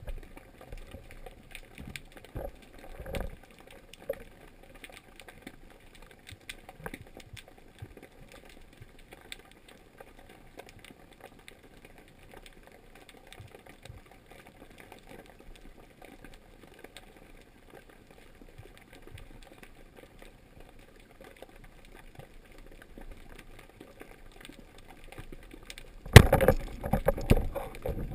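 Underwater ambience of faint water noise and scattered small clicks. About 26 seconds in, a rubber-band speargun fires with a sudden loud crack, followed by a run of loud knocks and rattles from the shaft and line.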